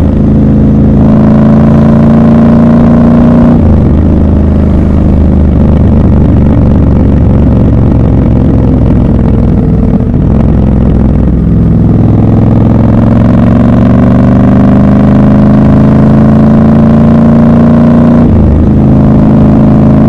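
Triumph Scrambler 1200 XC's parallel-twin engine pulling the bike along, heard from the rider's seat. The pitch drops sharply at an upshift about three and a half seconds in, sags about halfway, climbs steadily as the bike accelerates, and drops again at another upshift near the end.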